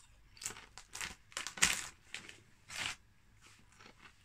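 Crisp packet crinkling and rustling in a handful of short bursts, the loudest a little past the middle.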